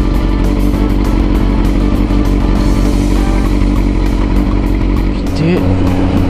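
Kawasaki ZRX400's inline-four engine idling steadily, with a short rise in engine pitch about five seconds in. Background music plays over it.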